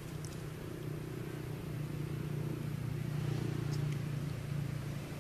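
Steady low engine hum, swelling slightly in the middle, with a few faint high ticks.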